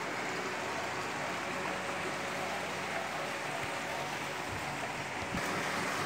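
Water falling in a continuous sheet down a glass screen fountain and splashing into the trough below, a steady noise.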